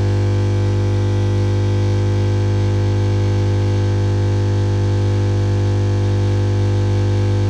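Bosch Classixx 1400 Express washing machine making a loud, steady humming drone with a hiss above it. The cause is a twenty pence coin and fluff caught in its drain at the bottom right-hand corner.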